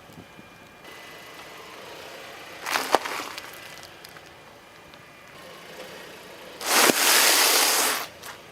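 A car running over and crushing objects: a sharp crack about three seconds in, then a loud hiss lasting just over a second near the end.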